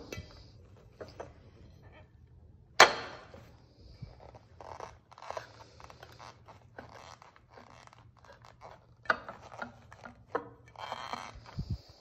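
Ceramic plates knocking and scraping against each other as the top plate is pressed down onto kitchen paper over flowers: one sharp knock about three seconds in, then scattered light clicks and rustles.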